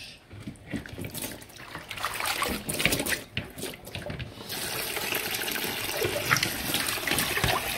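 Kitchen tap running water onto lettuce and other salad vegetables in a plastic colander in a stainless steel sink. The splashing is uneven at first, then becomes a steadier, fuller stream from about halfway through.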